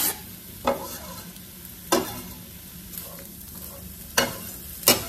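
Diced onions sizzling in hot oil in a skillet, with four sharp clacks and scrapes of a knife against the pan and cutting board as the onions are pushed off the board and spread out.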